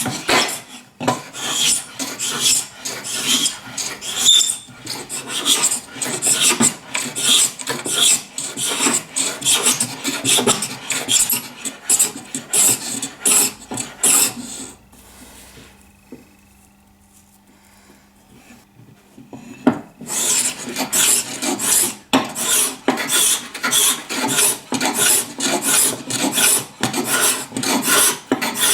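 Steel scraper-plane blade being sharpened with quick back-and-forth scratchy strokes, about two a second. The strokes pause for about five seconds midway, then start again.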